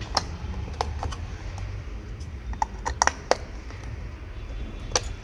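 Scattered sharp clicks and taps of hard plastic: a broken Royal Enfield Classic 350 turn-signal indicator being handled and pressed onto its stalk while it is glued back on. The taps come thickest about three seconds in, over a low steady background rumble.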